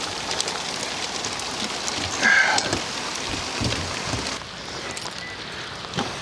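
Heavy rain falling: a steady hiss with many small drop taps. There is a brief louder sound about two seconds in, and the hiss turns duller about four and a half seconds in.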